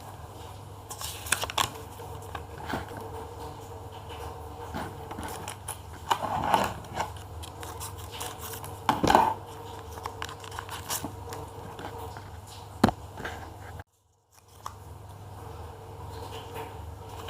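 Handling and opening a paper blind bag: paper crinkling and tearing, with scattered snips and clicks, over a steady low hum. The sound cuts out briefly near the end.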